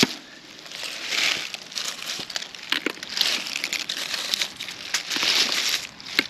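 Rustling and crackling of dry vegetation being disturbed, coming in repeated swells of about a second, with sharp crackles scattered through.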